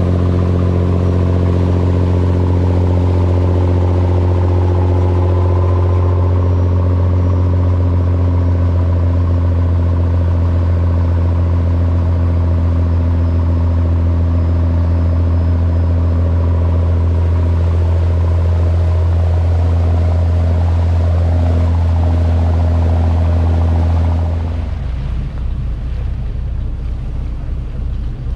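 A fishing charter boat's engine running steadily under way, a loud even drone. About 24 seconds in it eases off to a lower, rougher note.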